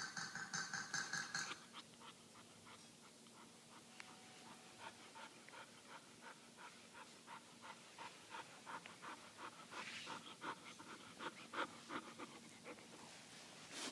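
Akita puppy panting steadily, about three breaths a second. In the first couple of seconds a plush squeaky toy squeaks in a quick run as the puppy chews it.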